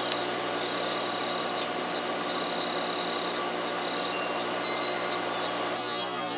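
A steady machine hum made of several fixed tones, with faint short high chirps over it; the lower part of the hum drops out near the end.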